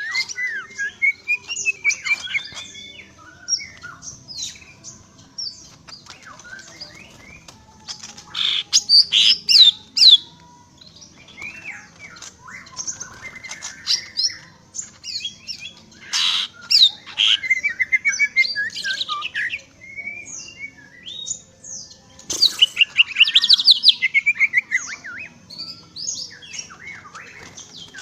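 Cucak ijo (green leafbird) singing a long, varied song of quick whistles, chirps and rapid trills, rising to louder bursts several times.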